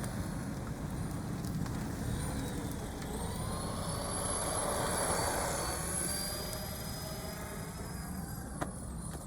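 A vehicle passing, its sound swelling over a few seconds and fading again, with a faint high whine riding on it; a single sharp click near the end.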